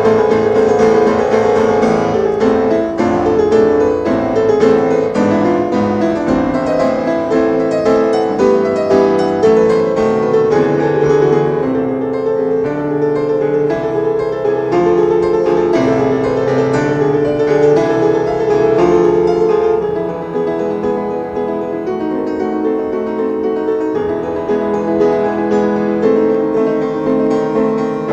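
Petrof grand piano played solo: a dense, continuous classical passage of chords and runs in both hands. It grows a little softer about twenty seconds in.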